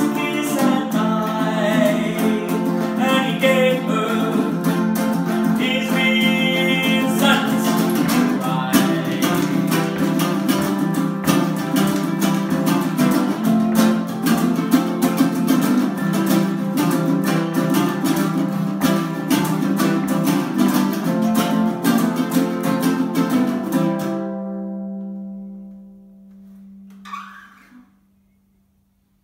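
Two ukuleles, one a baritone, played fast in a busy run of picked and strummed notes; about 24 seconds in they stop on a final chord that rings and fades away over a few seconds, with a brief rustle just before it dies out.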